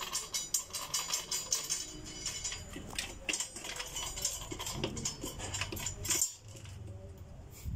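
Stainless-steel tubing of a frame being handled: a run of light metallic clicks, taps and clinks, with a sharper knock about six seconds in.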